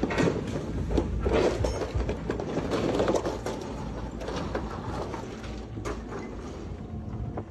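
Floodwater from a swollen river rushing across and around a road bridge in a hurricane downpour: a steady roar of water with scattered knocks and cracks.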